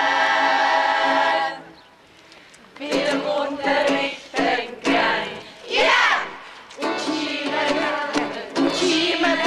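A group of people singing together: a long held chord that cuts off about a second and a half in, then after a short pause a few short sung phrases with gaps between them, running into steady group singing near the end.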